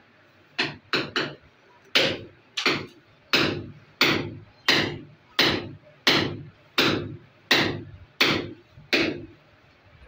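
A mason's steel trowel striking a rough cement-plastered wall in repeated sharp blows: three quick hits about half a second in, then a steady beat of about one blow every 0.7 s, eleven more in all.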